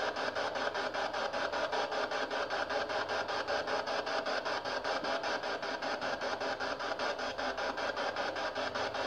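PSB-7 spirit box sweeping through radio frequencies: a steady static hiss chopped into a fast, even rhythm several times a second.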